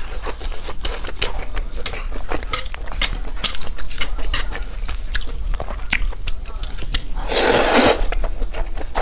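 Close-miked eating: crisp bites and chewing of a pan-fried Chinese chive pocket, a dense run of sharp crackly clicks with a louder, longer crunch about seven and a half seconds in.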